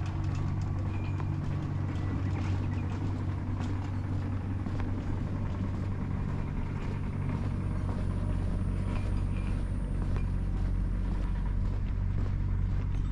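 Steady low motor hum with faint short ticks over it.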